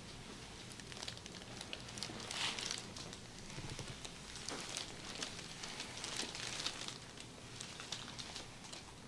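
Soft, irregular rustling with scattered light crackles and ticks, swelling to a louder rustle about two and a half seconds in and again around six seconds in.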